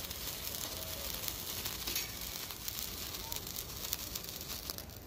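Sparkler burning, a steady sizzling hiss with fine crackles from the spitting sparks, dying away near the end as it burns out.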